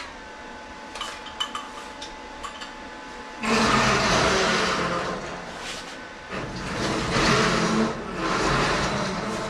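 Welder running short stitch welds on steel plate: after a few light clicks, three crackling weld runs of about two and a half, one and a half and one and a half seconds, a brief pause between each.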